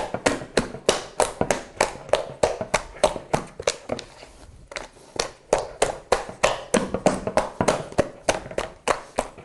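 Sticky Spätzle dough being beaten by hand in a bowl: quick rhythmic wet slaps of a cupped hand, about four a second, with a brief pause near the middle. Each slap folds air into the dough as it is worked towards a smooth, stretchy consistency.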